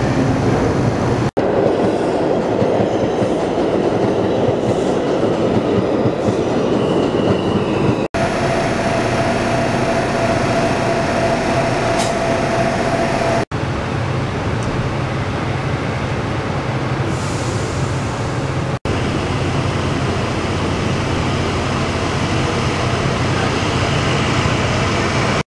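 Elevated subway train running on the steel structure overhead, with a steady high wheel squeal for several seconds near the middle. The noise is broken by four very short dropouts.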